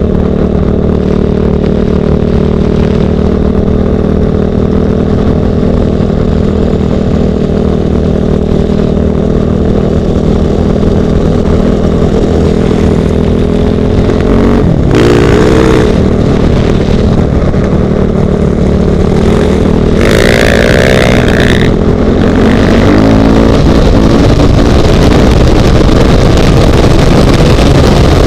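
Single-cylinder four-stroke enduro dirt bike engine, heard from the bike carrying the camera, running at a steady engine speed for about fourteen seconds. Its pitch then wavers as the throttle is worked, with a brief higher rising and falling whine about twenty seconds in, and near the end it rises and gets louder as the bike accelerates.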